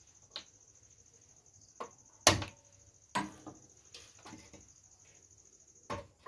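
Sharp knocks and clanks of metal cookware being handled at a gas stove, as a second burner is lit and a pot is brought onto it. The loudest clank comes about two seconds in, and another knock near the end as the pot is set down. A steady high chirping runs underneath.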